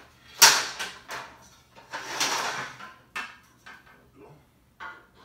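Knocks, clicks and clatter of a platform bed frame's parts being handled and its legs fitted: a sharp knock about half a second in, lighter clicks after it, and a longer scrape around two seconds in.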